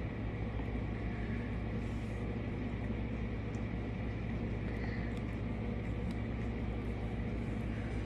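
A steady low hum with a noisy background and a few faint ticks.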